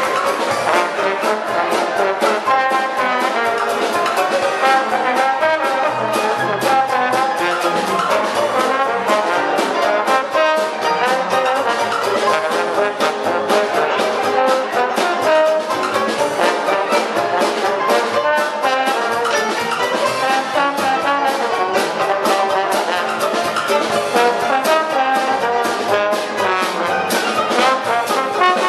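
Dixieland jazz band playing live, with the trombone out front over trumpet, banjo and drums.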